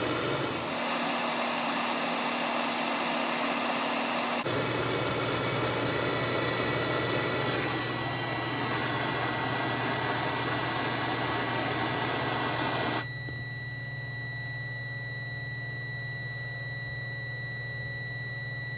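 Meter continuity beep: a steady high tone comes in about six seconds in as the thermostatic fan switch, heated in water, closes at its switch-on temperature. Under it a steady rushing noise cuts off suddenly about thirteen seconds in, leaving the beep over a low hum.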